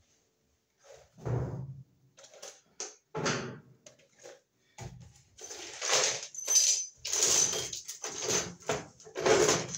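Irregular handling noises: knocks, clatters and rustling as tools and parts are picked up and moved about, louder and busier in the second half.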